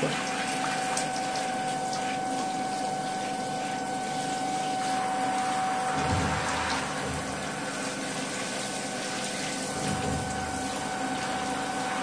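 Handheld shower head spraying water: a steady hiss of running water with a constant hum under it. Two brief low rumbles come about six and ten seconds in.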